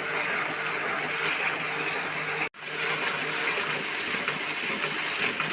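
Paper printing press running with a steady mechanical clatter of many fine rapid clicks over a low hum. It cuts out for an instant about halfway and resumes unchanged.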